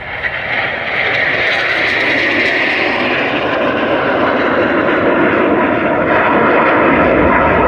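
RAF C-130 Hercules, a four-engine turboprop transport aircraft, flying past at an air display. Its engines and propellers build up loud about a second in, then run steady and loud.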